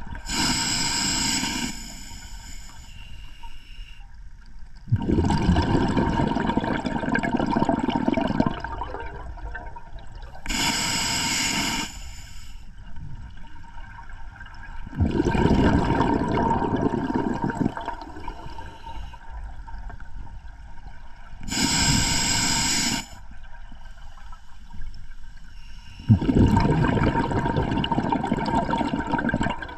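A scuba diver breathing through an open-circuit regulator: three slow breaths, each a short hissing inhale followed a few seconds later by a longer rush of exhaled bubbles.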